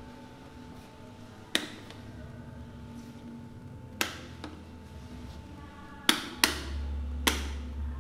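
Wall light switches flicked on and off: five sharp clicks, two of them close together about six seconds in. A low hum drops away early on and returns after the pair of clicks.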